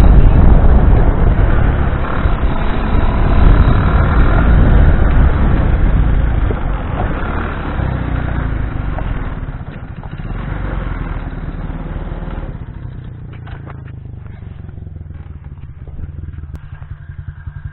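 Small off-road buggy's engine running while it drives over a dirt track, loud with rushing noise that gradually eases off. From about two-thirds in it settles to a steady low idle.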